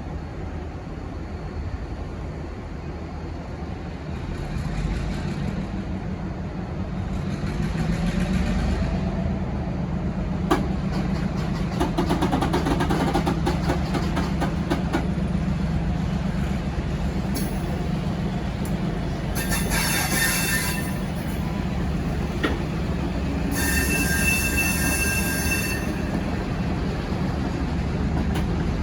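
Diesel shunting locomotive running as it moves a rake of passenger carriages, its engine note swelling a few seconds in. Wheels click over rail joints and points around the middle, then the wheels squeal twice in high bursts near the end.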